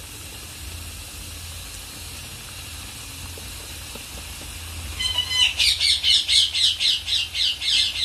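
Dough pieces frying in hot oil with a steady sizzle. About five seconds in, a bird starts a fast run of repeated squawking calls, about four a second, louder than the frying.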